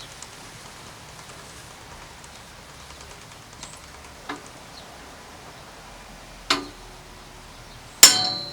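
Two hammer blows on a steel punch, driving a stuck cotter pin out of a bicycle crank arm. The blows land about a second and a half apart, and the second one is the louder and rings on with a metallic tone.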